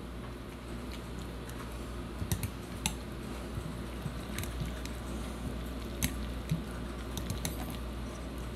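Potato masher working ripe avocado in a glass bowl: soft squishing with irregular light clicks of the masher against the glass.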